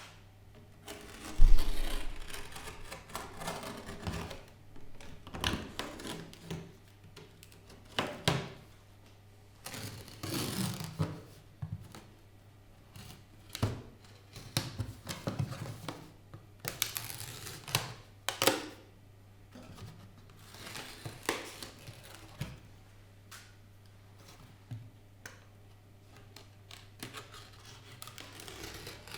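Irregular hand-work noises: a loud knock about a second and a half in, then scattered taps, clatter and short scrapes, over a steady low hum.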